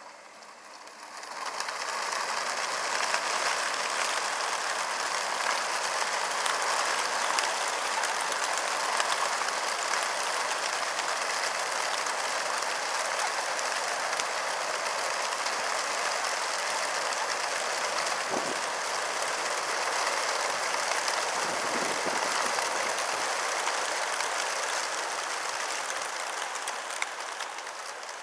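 Wings of a large flock of racing pigeons flapping and clapping as they burst out of a transport truck's crates at a release: a dense, steady clatter that swells about a second and a half in and slowly thins near the end.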